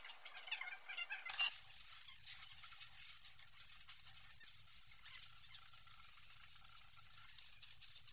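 Compressed-air blow gun hissing steadily from about a second and a half in, blowing leftover blasting media off a freshly shot-blasted alloy wheel.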